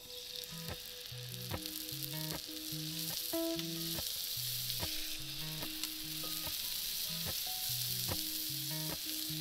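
Salmon fillets sizzling as they are laid into hot oil in a pan. The hiss starts as the first fillet touches the oil and grows louder over the next few seconds as more fish goes in.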